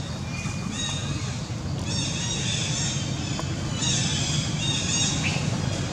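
Baby macaque giving repeated short, high-pitched squealing cries, each rising and falling, several in a row a second or so apart, over a steady low rumble.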